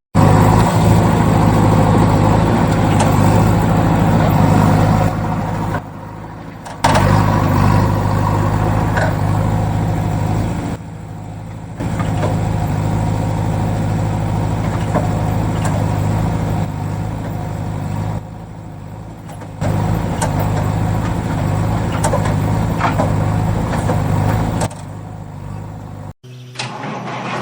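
Heavy vehicle engine running steadily with a low drone, dropping away briefly four times, at about 5, 11, 18 and 25 seconds in.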